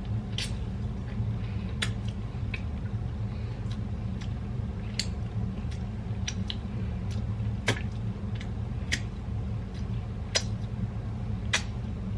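Cookie dough being handled and set into an air fryer basket: scattered short clicks and soft sticky squishes, about a dozen spread irregularly, over a steady low hum.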